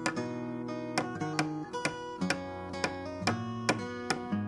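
Background music on plucked strings, acoustic guitar-like: a picked melody over sustained chords.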